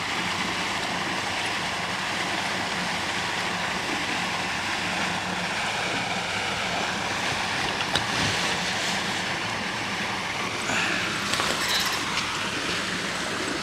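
Steady rush of splashing water from a pond's fountain aerator, with a faint low hum under it; a single sharp click about eight seconds in.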